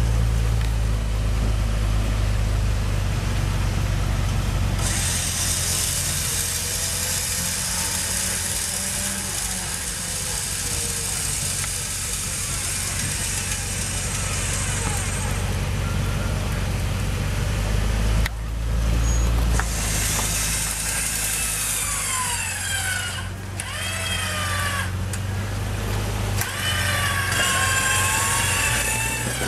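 Jeep Wrangler engine running steadily while its front electric winch hauls it up a rock ledge. A steady hiss joins in about five seconds in and stops around fifteen seconds.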